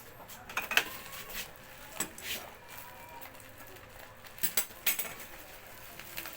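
Metal tools clinking and knocking against each other as they are handled and unpacked: a handful of separate sharp clicks, the loudest a little under a second in.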